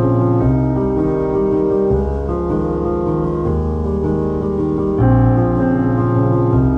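Background piano music, slow and steady, with a new chord about five seconds in.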